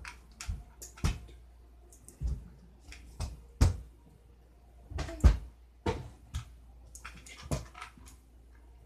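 About a dozen irregular thuds and knocks, uneven in spacing and strength, with the loudest about five seconds in, made by a person moving about in a small room.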